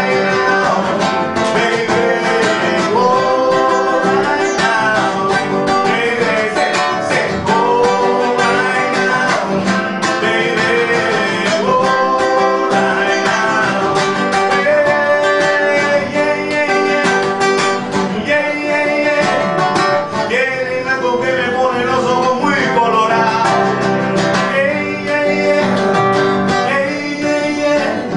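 A man singing a song over strummed guitar accompaniment.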